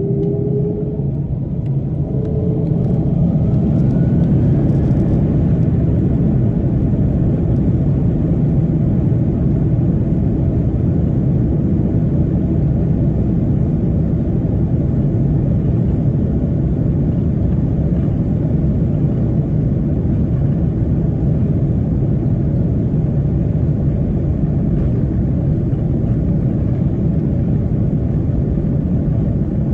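Jet airliner engines at takeoff power: a loud, deep, steady rumble that builds over the first few seconds, with a whine rising in pitch early on.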